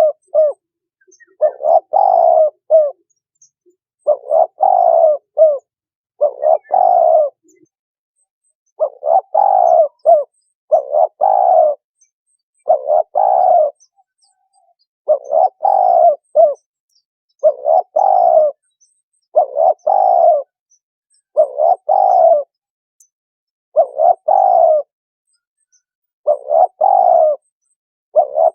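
Spotted dove cooing, the same call phrase repeated about every two seconds. Each phrase is a few short notes running into a longer coo.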